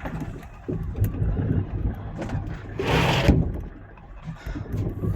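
A fishing boat's engine running steadily, with scattered knocks and a brief loud hiss about three seconds in.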